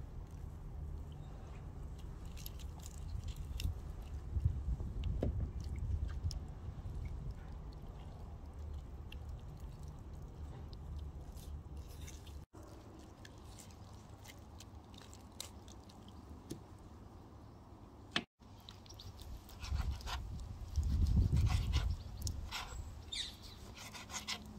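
Raw chicken thighs being skinned by hand: wet squelching and tearing of skin pulled from the meat, with scattered clicks and low bumps.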